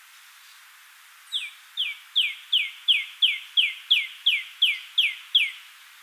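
Red-bellied woodpecker calling at its nest hole: a series of about a dozen short, falling notes, about three a second.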